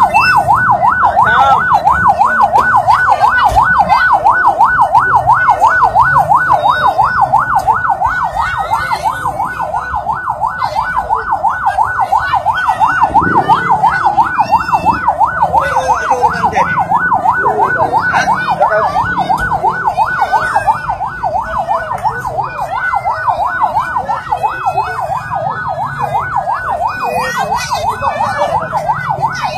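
Siren in a rapid yelp, sweeping quickly up and down without a break, with faint crowd voices underneath.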